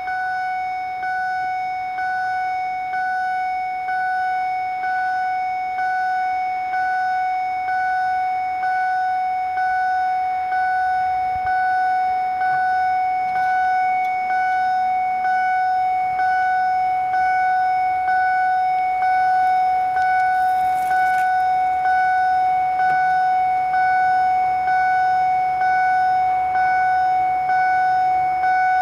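Level crossing's GZT 30 electronic acoustic warning signal sounding as the crossing closes: a loud, steady high tone that pulses about once a second.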